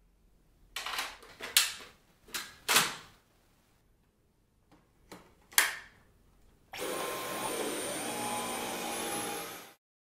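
Several sharp plastic clicks and knocks as parts of a Dyson V11 cordless stick vacuum are snapped into place. About seven seconds in the vacuum runs steadily for about three seconds with a high thin whine, then stops abruptly.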